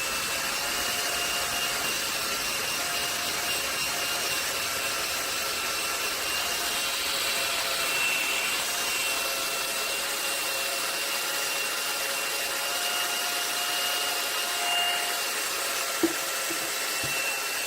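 Hand-held hot-air blower running steadily, a rushing airflow with a steady high whine, heating the phone's back glass around the camera to soften the adhesive of the cracked lens. A single short click sounds near the end.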